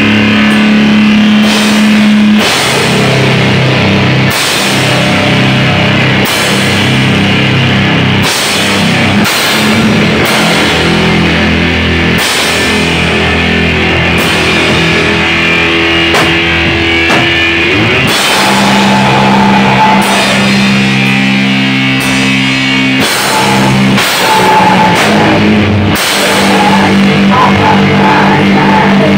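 Doom/sludge metal band playing an instrumental passage: long-held heavy guitar and bass chords that change every couple of seconds, over drum-kit hits.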